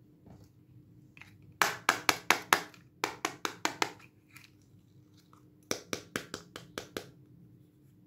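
Sharp taps on a hard plastic heart-shaped toy makeup compact held in the hands: three quick runs of several taps each, about five a second, the first starting about a second and a half in.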